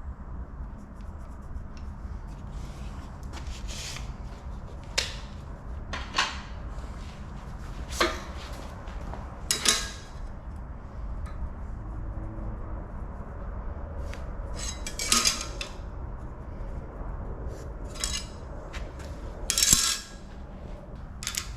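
Metal clinking and clattering, about eight separate sharp knocks spread out irregularly, the loudest two near the end, from tools and metal parts being handled on a shop bench. A steady low hum runs underneath.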